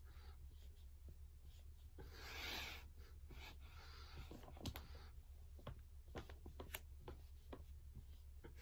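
Faint breathing of a person doing slow knee push-ups: a few soft breaths out, with scattered light clicks and rubbing, over a steady low hum.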